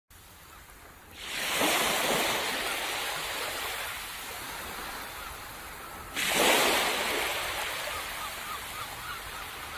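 Sea waves breaking on a beach, two surges of surf, about a second in and again about six seconds in, each washing in and fading away.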